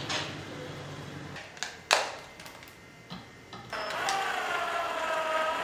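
A few sharp knocks and clicks, the loudest about two seconds in, then a cordless drill/driver starts about two thirds of the way through and runs with a steady motor whine that sinks slightly in pitch as it drives a screw into the end grain of a clamped board.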